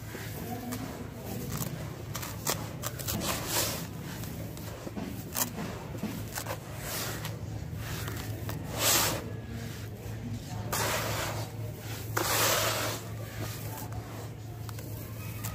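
Coarse, gritty dry sand being dug into by hands and poured back into a tub by the handful: a grainy, crunching rustle with small crackles, and louder hissing pours about nine seconds in and twice more shortly after. A low steady hum runs underneath.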